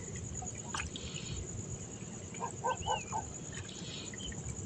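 Night insects chirring in a steady, high, finely pulsing drone. A little past halfway, four short low calls from some animal come quickly in a row.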